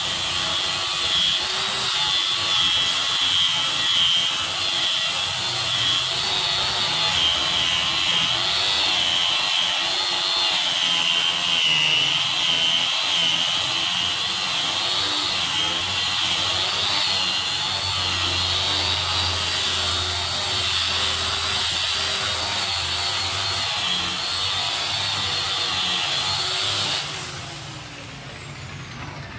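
Handheld electric sander running against a wooden door frame: a steady high motor whine over gritty sanding noise, its pitch wavering slightly as it is pressed and moved. Near the end it is switched off and the whine slides down as the motor winds down.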